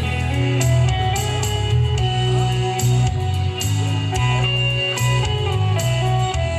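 Music: a song with guitar over a steady bass beat.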